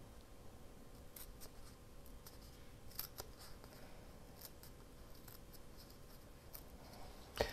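Faint, scattered snips and crinkles of paper as small bee images are worked out of a sheet by hand, with a faint steady hum underneath.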